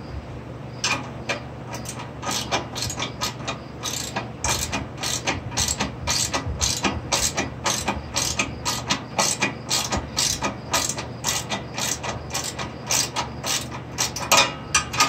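Ratchet wrench clicking in a run of short strokes, a few clicks a second, as the heat shield bolts are driven in.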